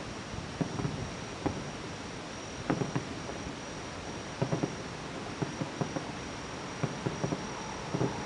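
Distant fireworks shells bursting as a scatter of dull thuds and pops at irregular intervals, several close together about three seconds in and again about four and a half seconds in. Beneath them are a steady hiss and a continuous high insect trill.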